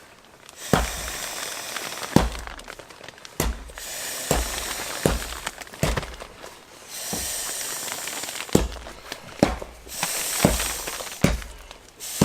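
Inflatable sleeping mat being blown up by mouth: a run of about a dozen forceful breaths into the valve, each a sharp puff with a thud, some trailing into longer hissing blows.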